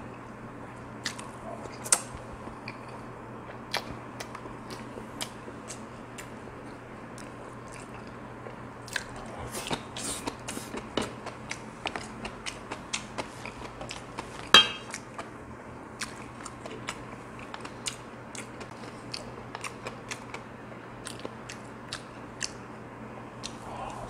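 Close-up chewing and mouth sounds of a person eating rice and Korean side dishes: many short wet clicks and smacks scattered throughout, with one louder click a little past the middle.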